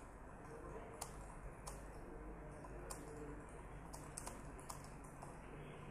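Typing on a computer keyboard: quiet keystroke clicks at an uneven pace over a steady low hum.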